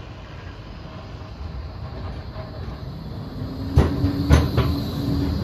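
A tram pulling in on its rails: a low running rumble that grows louder from a little past halfway, with a steady hum and three sharp clacks from the wheels on the track near the end.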